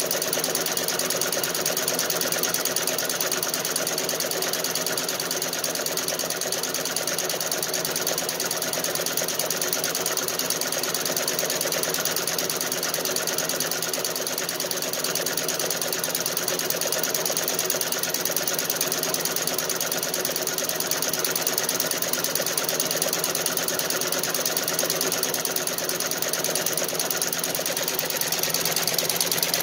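Feiyue multi-needle embroidery machine stitching steadily: a fast, even mechanical clatter of the needle bar.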